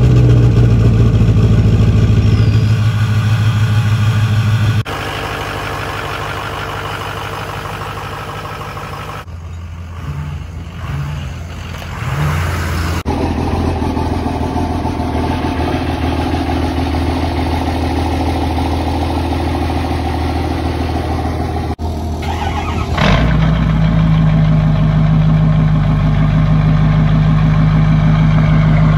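Vehicle engines running, idling and revving in a series of separate clips, each change of sound abrupt. The sound is loud throughout.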